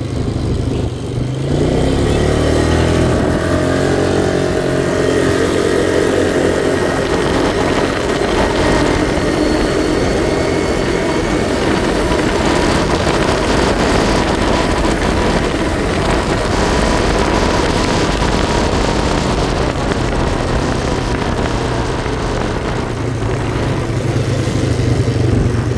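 Small ATV engine revving up about a second in, then running steadily under way.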